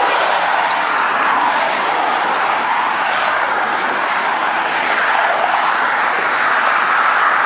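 Aerosol spray paint can hissing in one long continuous spray, close to the microphone.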